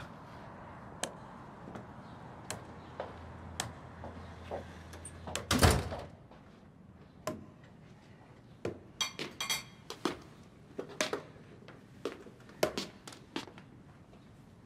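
Scattered light knocks and clicks of people moving about indoors, with one louder thump about six seconds in, a door shutting.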